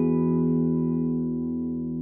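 Electric guitar chord on a Fender American Deluxe Telecaster through a DV Mark Little 40 amp, left ringing and slowly fading, with reverb.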